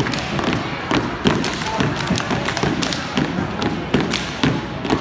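Step team stepping on a hardwood gym floor: a rhythmic run of sharp foot stomps and hand claps, with crowd chatter behind.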